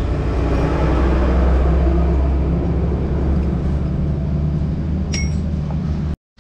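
A vehicle engine running steadily at idle close by, a loud low hum, with a single metallic clink about five seconds in. The sound cuts off abruptly just before the end.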